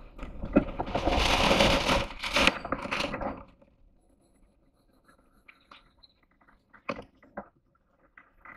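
Sailboat tacking: a rush of scraping and flapping from the jib and its sheets for about three seconds, then a few scattered clicks and knocks of deck gear as the crew work the lines at the winch.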